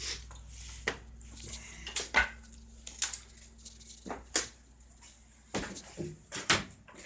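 Irregular knocks and clatters of hard objects, about a dozen sharp hits of varying loudness, over a faint low hum that fades away about a second in.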